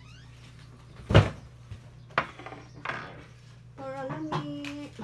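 Kitchenware being handled: a few separate knocks and clatters of dishes and utensils, the loudest about a second in, with a mug set down on the glass tabletop. A short hum of a voice near the end, over a faint steady hum.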